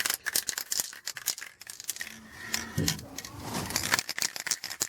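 Aerosol spray paint cans being handled: a quick, irregular run of metallic clicks and rattles, with no spray hiss.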